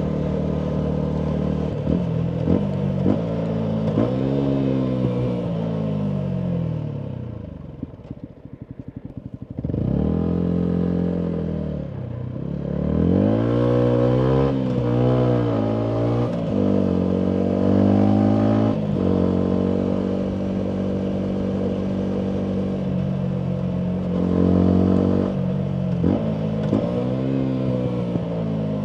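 Single-cylinder four-stroke engine of a Yamaha MT125 through a full Akrapovic exhaust. It slows and settles briefly to a lumpy idle about a third of the way in, then pulls away, rising and dropping through several gear changes before a steadier cruise. It slows again near the end, with a few sharp exhaust pops where the throttle closes.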